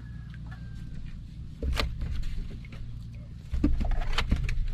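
Handling noises aboard a small wooden outrigger boat as a fishing line is hauled in by hand: knocks and clicks against the boat, in two louder stretches, about two seconds in and near the end, over a steady low rumble.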